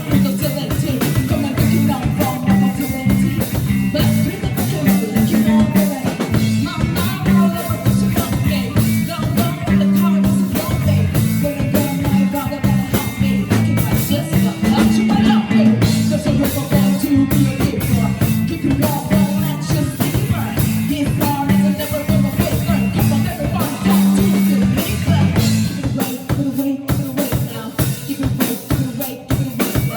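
A live band playing a song, with the drum kit prominent over a steady low bass line.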